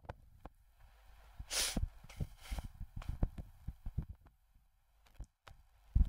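Faint, scattered clicks and taps, irregular, with a short breathy hiss about a second and a half in.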